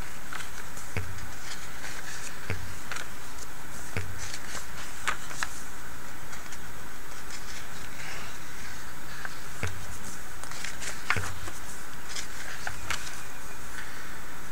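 Pages of a thick glossy catalog being handled and turned, giving scattered soft paper ticks and flicks over a steady hiss.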